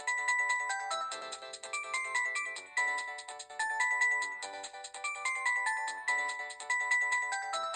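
A preloaded ringtone on a Samsung GT-E1150 mobile phone playing: a short synthesized melody of quick notes, its phrase repeating about every three seconds.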